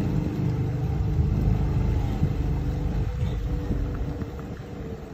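Jet ski engine running steadily across the water, with a low rumble that fades over the last couple of seconds as the craft moves away.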